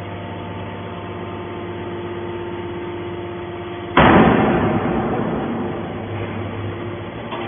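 Hydraulic aluminium can baler running with a steady motor-and-pump hum. About four seconds in, a sudden loud burst of noise breaks in and fades away over about two seconds.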